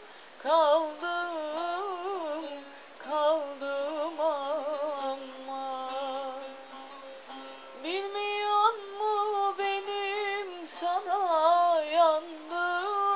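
A voice singing a Turkish folk song (türkü) in long, ornamented melismatic notes, the pitch trilling and sliding. One long low note is held before the voice jumps up about eight seconds in.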